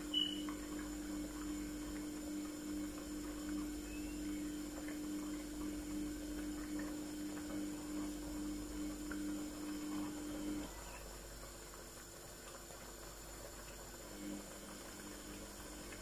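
Steady low hum over faint room noise. The hum cuts off suddenly about two-thirds of the way through, leaving a quieter background.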